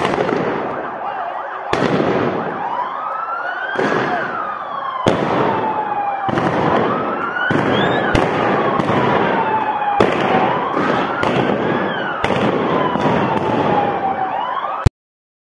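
Scattered single gunshots, about a dozen at irregular intervals, over a siren wailing slowly up and down every few seconds. The sound cuts off abruptly near the end.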